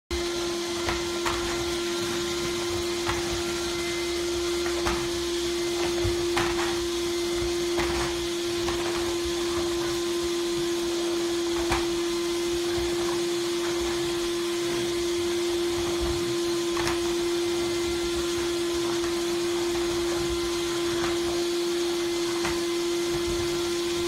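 Drum vacuum cleaner running steadily, a constant hum with hiss on top. About a dozen short knocks and clicks come at irregular moments from the floor head, which a French bulldog keeps biting and pouncing on.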